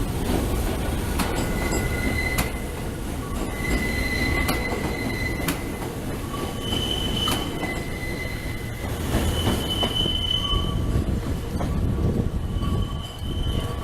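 Shintetsu electric train running with a steady rumble and high-pitched wheel squeal that comes and goes in stretches of a second or two, shifting between two pitches, with several sharp clicks along the way.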